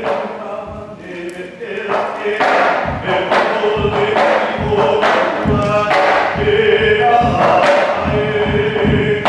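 Hawaiian hula chant: a chanting voice holding long, steady notes, with regular low percussive thumps that grow denser from about two seconds in.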